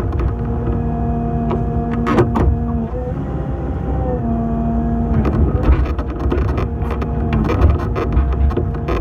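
Excavator's diesel engine running under load with a hydraulic whine that shifts pitch in steps as the boom and bucket move, heard from inside the cab. A few sharp metal clanks a little after two seconds in.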